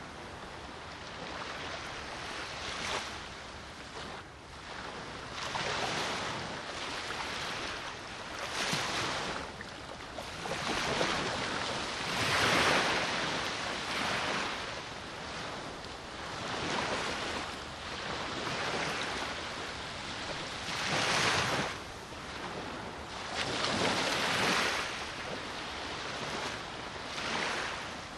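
Black Sea surf: small waves breaking on the shore in repeated surges every few seconds, with wind blowing.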